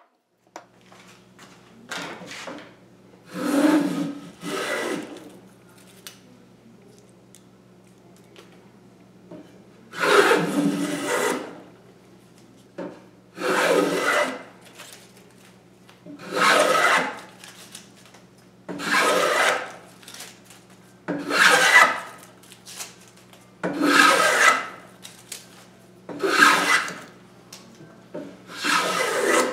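Vintage Stanley No. 3 corrugated-bottom bench plane cutting shavings along the edge of a board in a vise: a run of planing strokes, each about a second long, coming roughly every two and a half seconds, with a few shorter, lighter passes before them.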